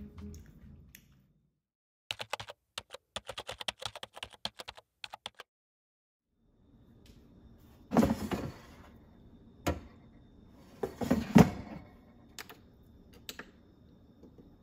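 A quick run of light clicks for about three seconds, then an air fryer's basket drawer being handled: a loud slide and clunk a little past halfway, a few knocks, and a second loud slide and clunk as the drawer is pushed back shut.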